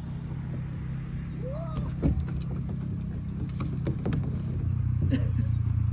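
A motor or engine running with a steady low hum that grows gradually louder. A few light clicks and a brief high call from a small child about a second and a half in sit over it.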